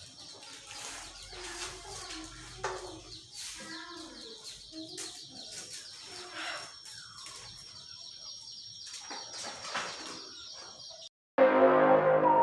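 Birds chirping with clucks from chickens over a steady high tone and faint household clatter. About eleven seconds in this cuts off and louder background music starts.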